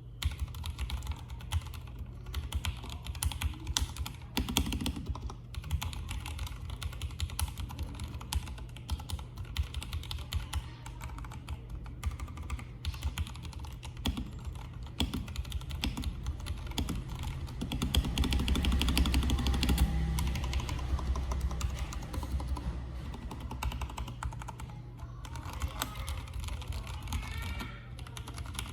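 Akko 3084 mechanical keyboard with lubed brown tactile switches, lubed stabilizers and foam dampening, typed on in a steady stream of key clicks, louder and busier for a few seconds past the halfway mark.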